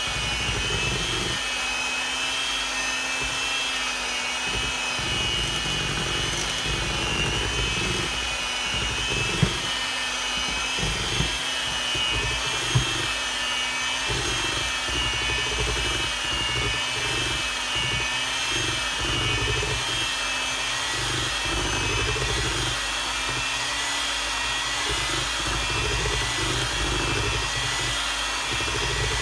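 Electric hand mixer running steadily, beating batter in a bowl, with a wavering high whine. Three brief sharp knocks stand out near the middle.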